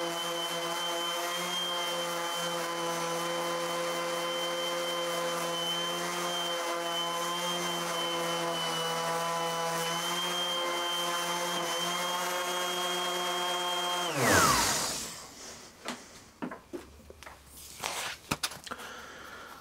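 Old 125 mm random orbital sander running at steady speed while sanding pallet wood, with a constant motor whine. It is switched off about fourteen seconds in and winds down with a falling pitch, followed by a few light knocks and handling sounds.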